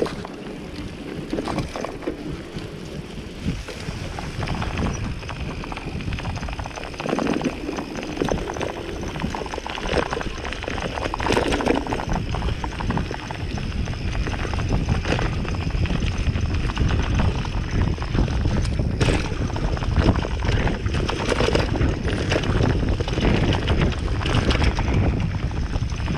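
Gravel bike ridden fast over a rough dirt trail, heard from the bike: a continuous rumble of tyres on dirt with frequent knocks and rattles over bumps, getting louder in the second half.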